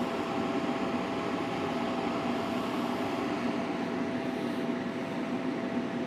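Heat Wagon P900 electric heater running with its heating coils on: the fan blowing a steady rush of air, with a thin steady hum over it.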